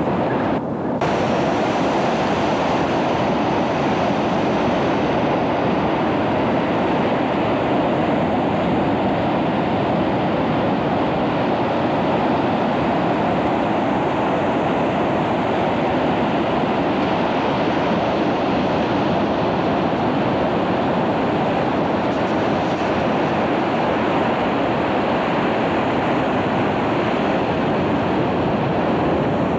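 Ocean surf breaking on a sandy beach, a steady rushing noise with a brief dip about a second in.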